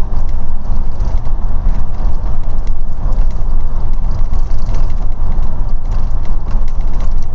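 Inside a moving bus: a loud, steady low rumble of engine and road, with light rattling clicks from the bodywork and fittings.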